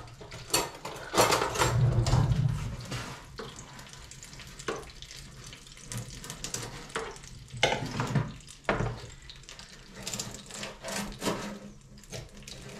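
A fork scraping and clinking in the pulled-out drawer of a Cosori Dual Blaze TwinFry air fryer as a roasting chicken is turned, with the hot juices sizzling. Scattered clicks and knocks, with a louder, busier stretch in the first couple of seconds.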